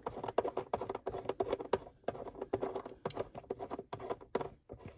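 Hands screwing a metal leg bolt into the plastic base of an upturned Addi King Size knitting machine: a quick, uneven run of small clicks and scratches from the plastic and metal parts.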